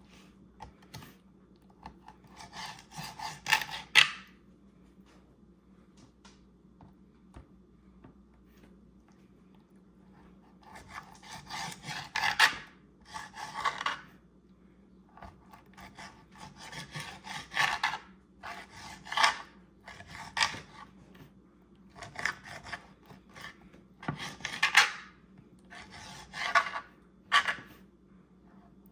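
Kitchen knife slicing food on a cutting board, in bursts of quick sawing strokes lasting a second or a few seconds, with short pauses between.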